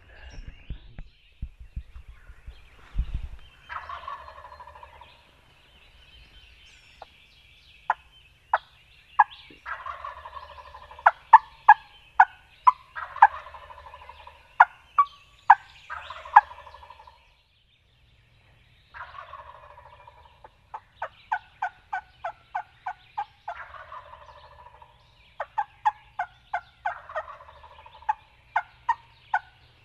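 Wild turkey gobbler gobbling again and again from its roost tree, a rolling gobble about every five seconds. Between the gobbles come runs of short, sharp, loud notes, about two a second.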